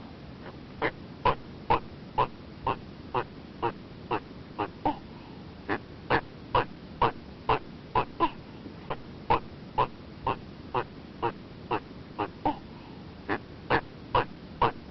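An animal giving short calls in a steady series, about two a second, with a brief pause about five seconds in.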